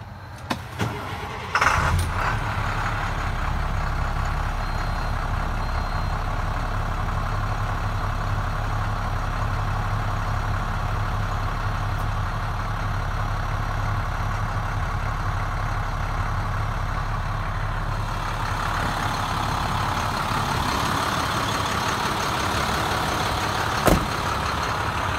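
International DT466 inline-six diesel in a CXT pickup, coming in with a sharp burst about two seconds in, then running steadily with a deep rumble. A single sharp click near the end.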